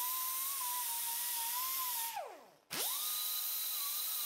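Chicago Pneumatic CP875 air die grinder with a wire brush wheel running at high speed with a steady high whine, deburring the cut edges of a half nut. About two seconds in it is let off and the whine falls away as it spins down. Half a second later it starts again with a quick rise in pitch and runs steadily.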